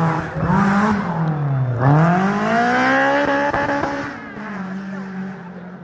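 Porsche 911 SC's air-cooled flat-six rallying hard. The revs rise and fall, drop sharply just under two seconds in, then climb to the loudest point about a second later. They fall away and settle lower and steadier near the end.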